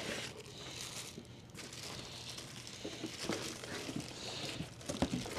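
Cardboard box and packing material rustling, with scattered light knocks and clicks as parts are taken out, the clicks a little louder near the end.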